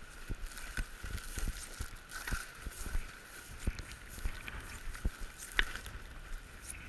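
Footsteps of a person walking over the forest floor, a short knock about every two-thirds of a second, over a steady outdoor background hiss.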